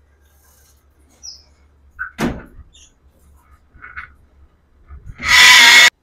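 Parrot calls: a few faint short chirps and a single sharp click, then a loud harsh screech lasting under a second near the end.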